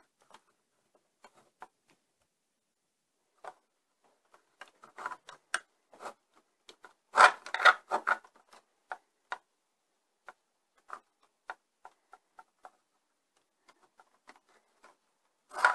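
Fingers pressing Play-Doh into a plastic mould on a plastic toy: scattered soft clicks and rubs of handling, with a louder cluster of knocks and rustles about seven seconds in and another near the end.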